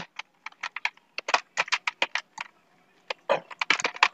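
Typing on a computer keyboard: a quick, uneven run of key clicks, with a brief pause a little past halfway before a last flurry of keystrokes.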